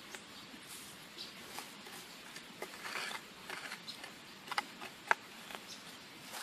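Small metal hand trowel scraping and pushing loose soil and leaf litter around a planted seedling, making scattered soft crunches. There are two sharper clicks a little past the middle.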